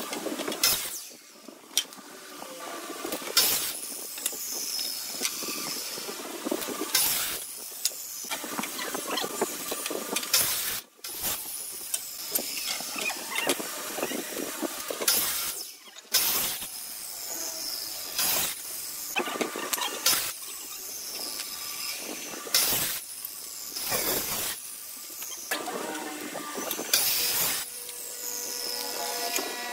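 Electric miter saw making repeated crosscuts through wooden boards; several times its high motor whine falls away as the blade spins down after a cut. Between cuts there are sharp knocks and clatters of the wood being handled and set down.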